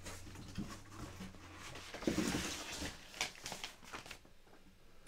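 Hard plastic CGC slabs holding graded comic books being handled: light clicks and taps, with a rustling, sliding stretch about two seconds in.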